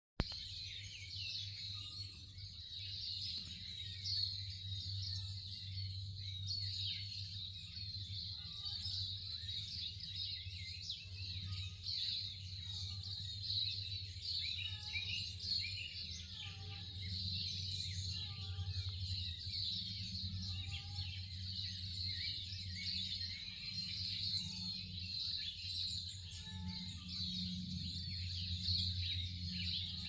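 A dense chorus of birdsong with many overlapping chirps, over a steady low hum. Through the middle, a short falling call repeats about once a second.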